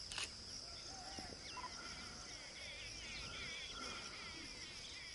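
Outdoor ambience of a steady, high-pitched insect drone with small birds chirping and warbling over it, busiest in the second half. A single short click comes just after the start.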